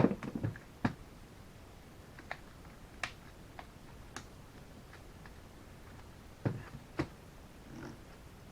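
Scattered sharp clicks and taps of hand tools and metal parts being handled on a drill chuck: a loud click at the very start, then single light clicks every second or so, with a couple of knocks near the end.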